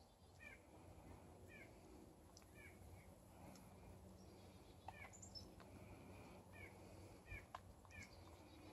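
Faint bird calling again and again in woodland, a short two-part downward note about once a second, with a few faint clicks.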